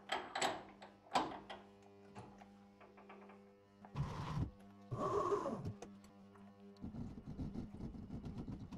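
Soft background music, with a few metallic clunks near the start as a taper tool holder is pushed up and seated in the milling machine's spindle. Two short hisses follow about four and five seconds in.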